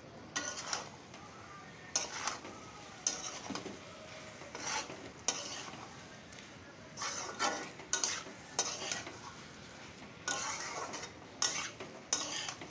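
A metal spatula stirring and scraping boiled soya chunks and masala around a wok (kadai), in irregular strokes about once a second, over a low sizzle from the frying spices.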